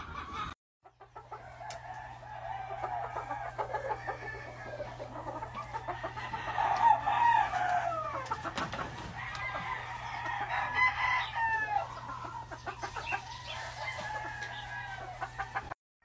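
Gamefowl roosters crowing and chickens clucking, several birds calling over one another above a steady low hum. The sound drops out briefly just after the start and again near the end.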